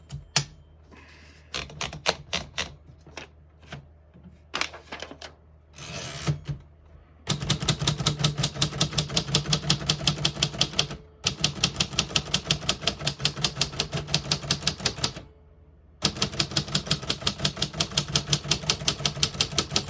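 1954 Royal Senior Companion portable typewriter being typed on. A few scattered clacks come first, then three long runs of fast, even keystrokes at about five a second, each run broken by a short pause. The keys strike cleanly, none skipping or sticking.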